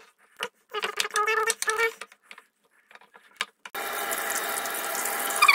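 Hot oil sizzling steadily as a potato-and-cheese ball deep-fries, starting suddenly about two-thirds of the way in. Before it, a short stretch of a person's voice.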